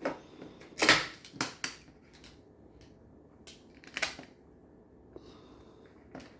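Plastic magnet tiles clicking and clacking together at irregular intervals as triangle tiles are snapped into place, the loudest clack about a second in and another near four seconds.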